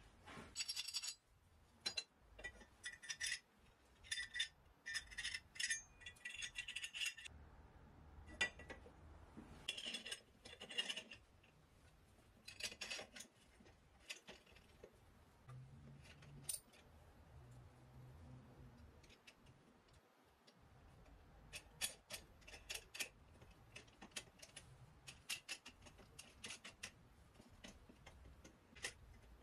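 Aluminium extrusions being handled and fitted together in a vise: faint, irregular metallic clicks, clinks and light scrapes as a short piece is slid along the rail, some clicks coming in quick clusters.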